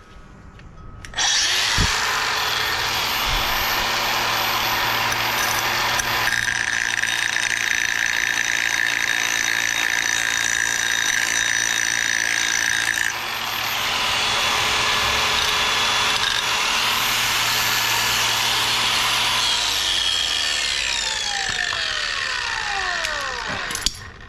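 A power grinder starting up about a second in and grinding the side of a stainless steel washer: a loud, steady grinding noise that winds down with a falling pitch near the end.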